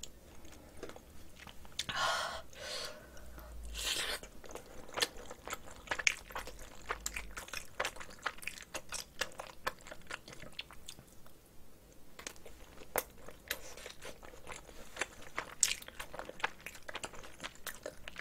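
Close-miked chewing of a mouthful of rice mixed with spicy seasoned cockles (bul-kkomakjang) and crushed seaweed: a steady run of small wet clicks and crunches. A couple of louder rasping noises come in the first few seconds.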